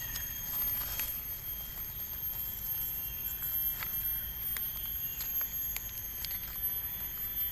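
A knife scraping soil off the stem base of a freshly picked bolete mushroom: soft scratches and small clicks. Under it a steady high-pitched whine.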